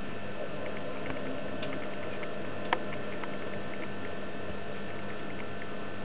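Light irregular taps and ticks of a great spotted woodpecker pecking at suet in a wire cage feeder, with one sharper click nearly three seconds in, over a steady hum.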